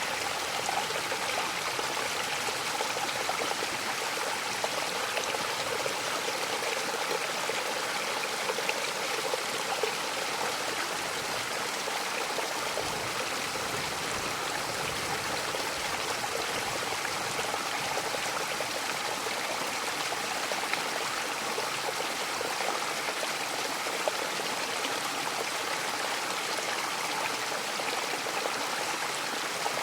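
Mountain waterfall: falling and rushing water making a steady, even hiss with no change.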